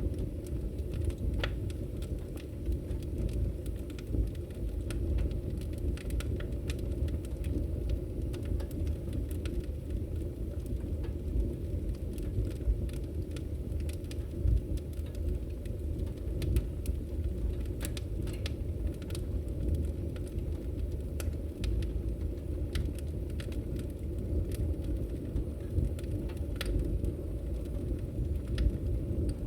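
Fireplace fire crackling: irregular sharp pops and snaps scattered over a steady low rumble of the burning flames.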